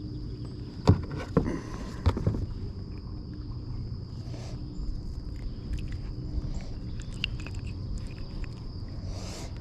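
A few sharp knocks and clunks in the first couple of seconds, then smaller ticks, over a steady high thin drone and a low rumble of wind or water.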